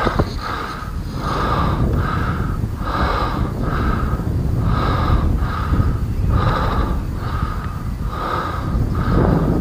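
A person breathing hard in quick, even puffs, about two a second, with wind rumbling on the microphone.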